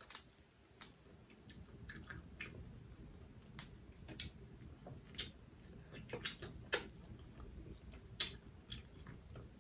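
Boiled crawfish shells cracking and snapping as they are peeled by hand: scattered, irregular sharp clicks, the loudest about seven seconds in.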